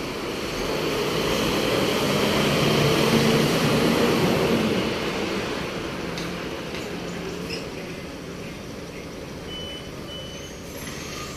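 Fire engine's diesel engine running as it pulls away: the rumble grows louder over the first few seconds, then fades as the truck moves off.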